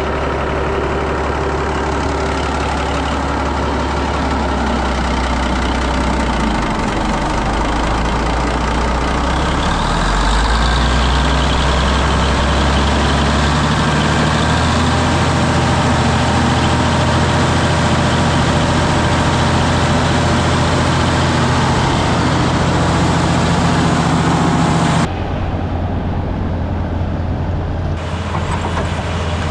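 A sawmill's engine running steadily and loudly, with a low hum whose tone shifts about halfway through. About 25 seconds in, the higher noise cuts off suddenly while the engine keeps running.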